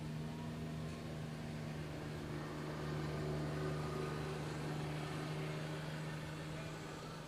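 Steady drone of distant kart engines, swelling a little about halfway through and easing off again.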